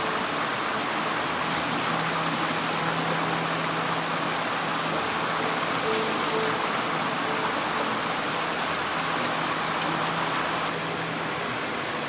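Mountain stream rushing steadily, an even wash of water noise, with faint sustained notes of background music beneath it. It turns slightly duller about eleven seconds in.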